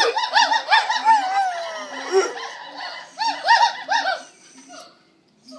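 Gibbons singing: quick runs of rising-and-falling whoops, about four or five a second, with a dog howling along in one long falling note about a second in. The calls fade out near the end.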